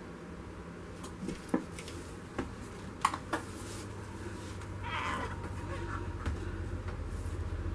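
Plastic paint cups and squeeze bottles set down on a plastic-sheeted tray, a few sharp knocks in the first half, the loudest about three seconds in. About five seconds in comes a short high cry, and a low hum rises under the rest.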